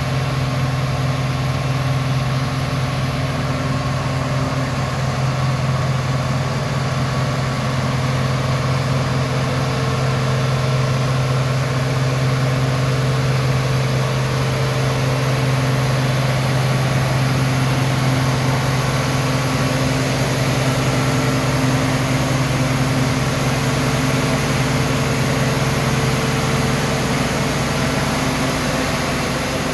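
Cummins diesel engine of a 1000 kW mobile generator set running steadily after startup: a loud, even, low drone.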